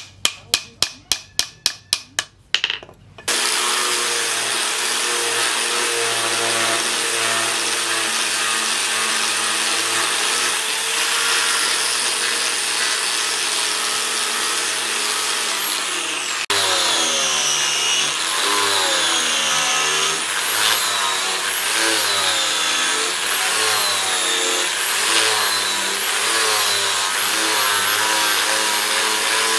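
About a dozen quick hammer blows, several a second, on the machete's riveted wooden handle. About three seconds in they stop, and an electric angle grinder with a sanding disc starts running against the wooden handle scales. Its whine holds steady at first, then from about halfway dips and rises again and again as the disc is pressed into the wood.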